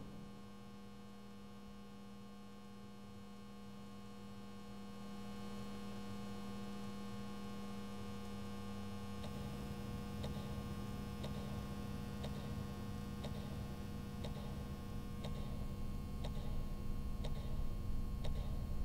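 A steady electrical hum. About halfway through, faint regular ticks begin, about one a second, and the sound grows slowly louder toward the end.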